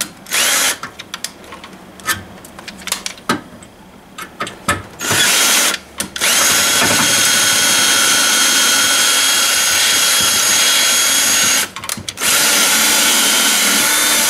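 Ryobi 18-volt cordless drill boring a mounting hole into the truck's front-end panel. It starts in a few short, stop-start bursts, then runs with a steady high whine for about six seconds, stops briefly, and runs again near the end.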